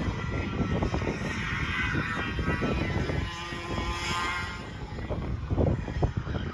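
Two-stroke racing kart engine running at high revs as the kart laps the track. Its high, buzzing note swells loudest from about two to four seconds in, then fades as the kart moves away.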